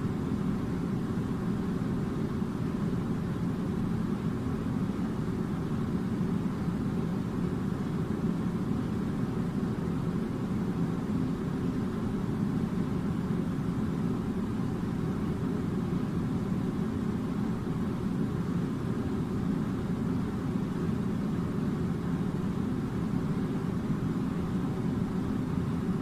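Steady low rumbling hum of machinery, unchanging throughout, like the drone of an air conditioner or a ship's engines.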